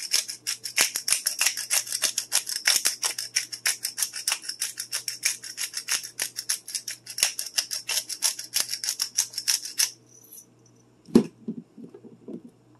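Black pepper being worked out of its container over a raw turkey: a quick, even, crisp crunching rattle of about five strokes a second that stops about ten seconds in. A single loud knock follows, then a couple of lighter knocks, as things are set down.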